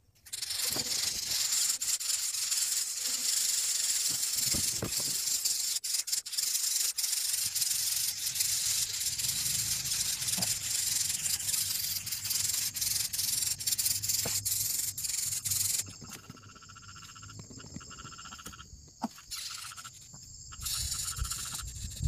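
Greater coucal nestlings hissing in the nest: a harsh, continuous hiss that starts suddenly and drops away about sixteen seconds in, leaving a fainter, broken sound.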